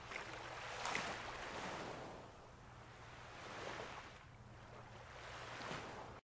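Rushing wind and sea noise, swelling and easing every couple of seconds over a faint steady low hum, cutting off abruptly near the end.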